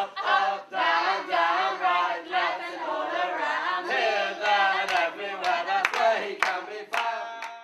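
Young children and adults singing a children's song together, with a few sharp hand claps in the second half; the singing cuts off near the end.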